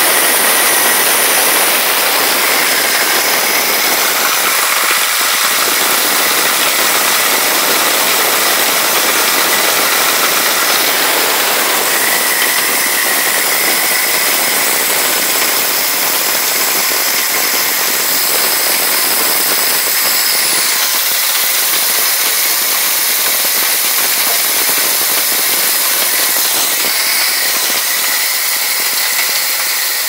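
Homemade corn grinder built from a pressure cooker running steadily with a loud, even noise while grinding dried corn kernels.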